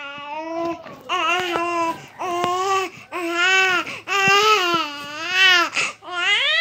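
A six-month-old baby calling out in a string of about seven long, drawn-out vowel sounds, each under a second, with short breaths between them.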